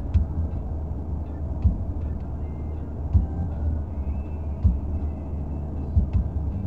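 Steady low rumble of a car driving at highway speed, heard inside the cabin: tyre and engine noise. A short knock comes about every second and a half.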